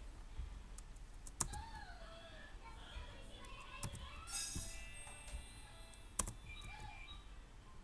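A few sharp computer keyboard keystrokes and clicks, the loudest about a second and a half in and again about six seconds in, over faint background music.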